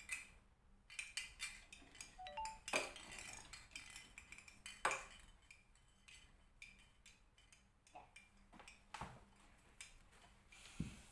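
Light, scattered plastic clicks and knocks as a toy cradle's plastic mobile, with small toys hanging from it, is handled and fitted onto the cradle's arch, with a dull thump near the end.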